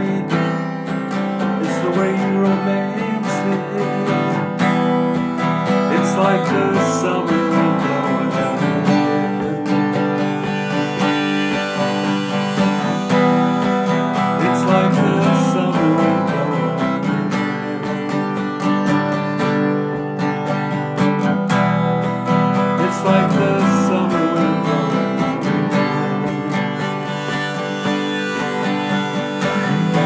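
Acoustic guitar being strummed with a harmonica played from a neck holder: an instrumental passage without singing.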